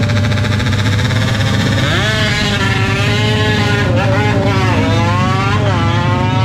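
Tuned drag-racing motorcycle engine revved in throttle blips, its pitch climbing and dropping several times from about two seconds in.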